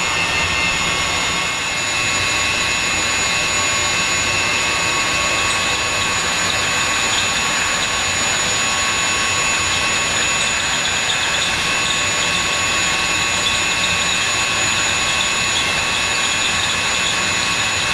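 Electric drill on a magnetic-base drill rig boring steadily into a steel safe door: a continuous motor whine with several held tones over the grinding of the bit cutting metal.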